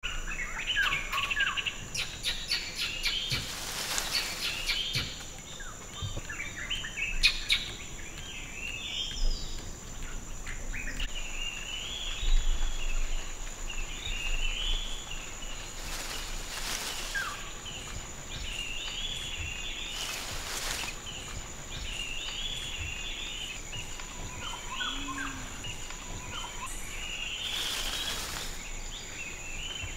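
Tropical rainforest ambience: a steady high insect drone with birds chirping over it. A few brief noisy swooshes come and go, around four times.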